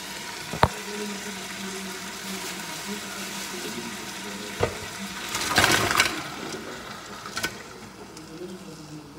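A pot of tom yum with shrimp and crab cooking on the stove, giving a steady sizzling hiss. There is a sharp knock about half a second in, another at about four and a half seconds, and a brief louder rush of noise around five and a half seconds.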